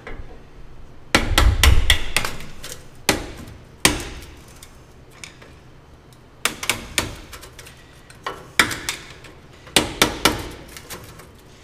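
Hammer striking a screwdriver to spread apart an exhaust band clamp: a dozen or more sharp blows in irregular groups, the heaviest about a second in.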